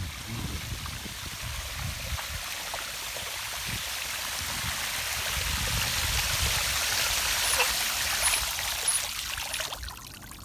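Flood-irrigation water rushing and splashing steadily, growing louder, then dropping off abruptly near the end.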